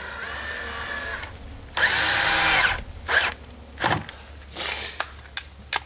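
Power drill driving screws into the wooden fence stake: the motor whines for about a second, then there is a longer run about two seconds in, followed by short trigger pulls and a few sharp clicks near the end.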